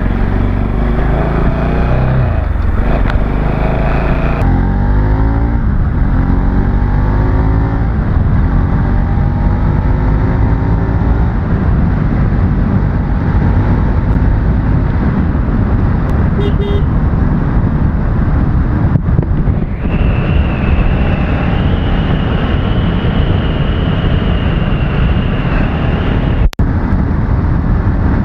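Motorbike engine pulling away and picking up speed, its pitch rising over the first several seconds, then running steadily under a rush of wind and road noise. A steady high tone joins for several seconds in the second half.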